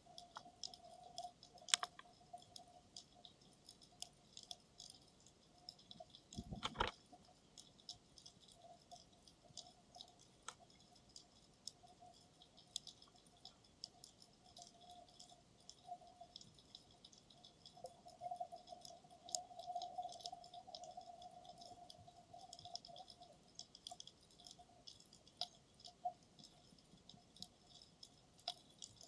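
Faint underwater ambience picked up through the camera's dive case: a sparse crackle of short clicks, with a faint hum that comes and goes and one louder knock about seven seconds in.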